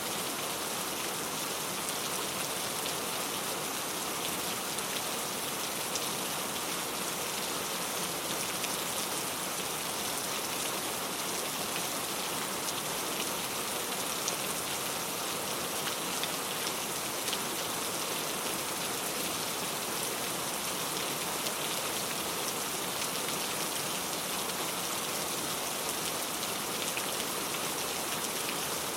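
Heavy rain falling steadily, an even hiss with many individual drop ticks on a surface.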